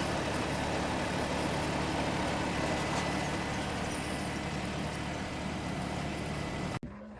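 Vehicle engine idling steadily, cutting off suddenly near the end.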